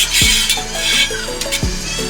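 Background music with a kick-drum beat and a repeating melody.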